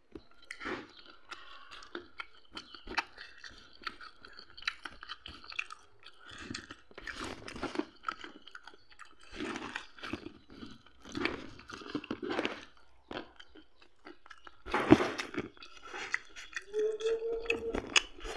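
A person chewing and crunching food up close, in irregular bursts, the loudest about fifteen seconds in. A brief steady hum comes near the end.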